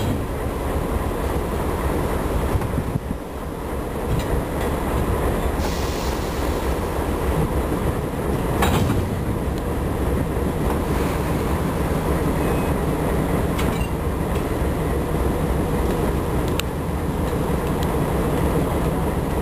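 Diesel locomotives idling with a steady low rumble, with a handful of short, sharp metallic clanks from the coupling between the units, where a man is working by hand.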